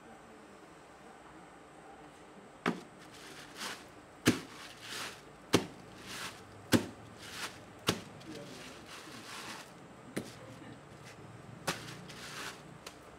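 Hands slapping and working a lump of wet onggi clay torn from a heap: about seven sharp slaps roughly a second apart, with softer rubbing and squishing sounds between them.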